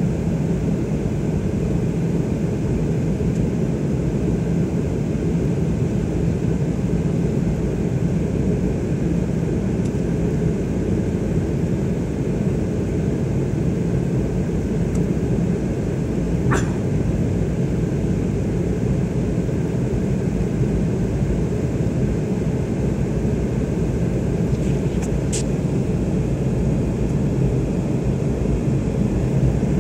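Steady cabin noise of a jet airliner in flight, heard from a window seat: a low, even rumble of the engines and rushing air. Two brief faint clicks come just past halfway and near the end.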